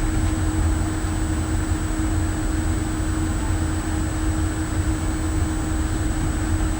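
Steady machinery rumble with a constant hum, unchanging throughout.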